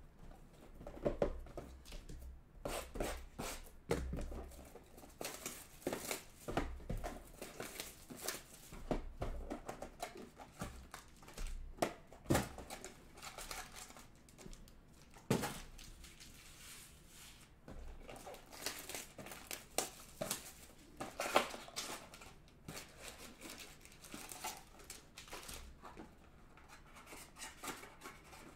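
Sealed boxes of 2020 Panini Select football cards being unwrapped and opened by hand: plastic wrap crinkling and tearing, with cardboard and foil packs rustling and tapping in irregular bursts.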